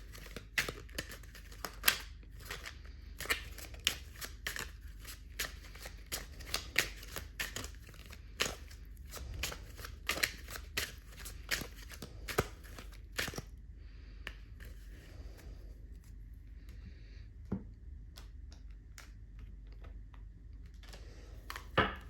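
A deck of tarot cards being shuffled by hand: a quick run of soft card flicks and slaps for about the first thirteen seconds, then only a few scattered quiet clicks.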